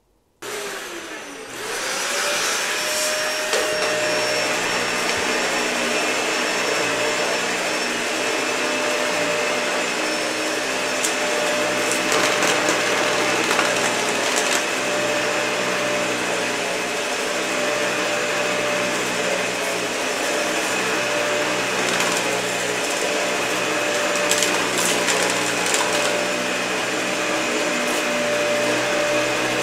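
Dyson vacuum cleaner switched on about half a second in, its motor spinning up to a steady whine within a couple of seconds, then running steadily over carpet with scattered crackles of debris being sucked up.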